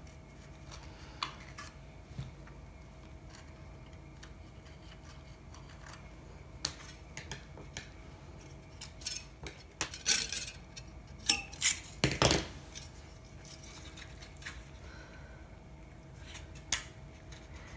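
Thin aluminum flashing strip being bent and handled by hand against a paper template: scattered light metallic crinkles and clicks, loudest in a cluster about ten to twelve seconds in.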